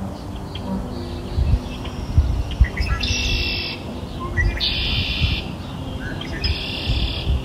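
Birdsong: three high trilled phrases about a second and a half apart, each opening with a short chirp, over faint steady background tones and a few soft low thumps.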